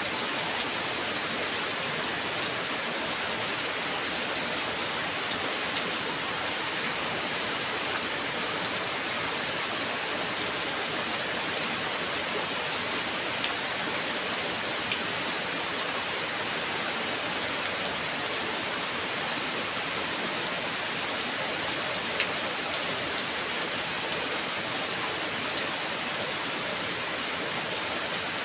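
Heavy rain falling steadily, an even hiss with a few sharper drop hits standing out now and then.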